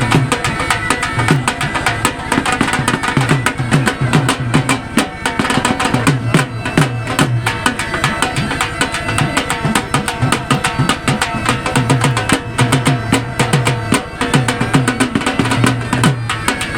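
Background music with drums and a steady percussive beat.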